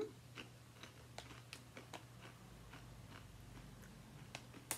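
Rippled potato chips being chewed: a faint scatter of small crisp crunches, with a sharper one near the end, over a low steady hum.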